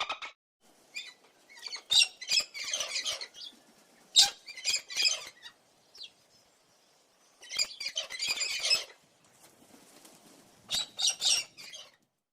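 Birds making clusters of short, harsh bursts of sound, with quiet gaps between the groups.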